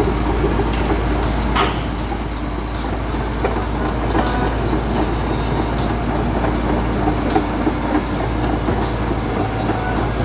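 Komatsu D85ESS-2 crawler bulldozer running: a steady deep engine rumble with a dense clatter over it and a sharp knock about a second and a half in.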